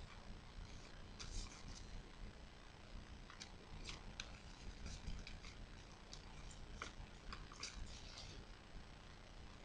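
Origami paper crinkling and rustling as fingers crease and fold it, with short crisp crackles scattered irregularly throughout.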